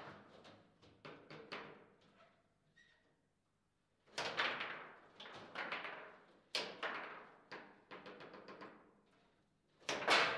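Table football in play: the hard ball clacking off the rod figures and the table walls, and rods knocking, each hit ringing briefly. The hits come in quick runs, with a silent lull about three seconds in and a loud hit near the end.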